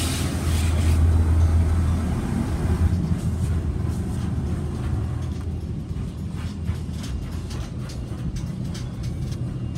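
Hand-prep water spray hitting a car during an automatic car wash, heard from inside the cabin over a steady low rumble. The spray hiss fades over the first few seconds, then scattered sharp taps of water drops hit the windshield and body.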